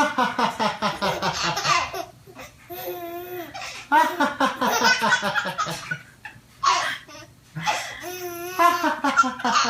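A baby laughing hard in several bouts of rapid belly laughs, with short pauses between them.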